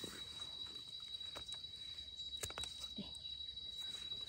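A steady, high, unbroken insect trill, with a few faint clicks and rustles in the leaf litter as a wild mushroom is cut out with a knife.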